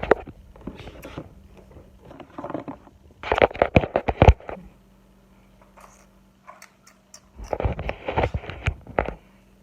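Small plastic beads and their kit case clattering and rattling as they are handled, in two bursts: one about three seconds in and a longer one about seven seconds in.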